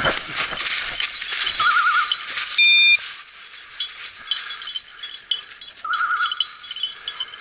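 Dry leaf litter rustling and crunching under footsteps and a setter's paws, with a small dog bell jingling on and off as the dog moves. Two short warbling tones sound, about two and six seconds in, and a loud short beep comes about three seconds in.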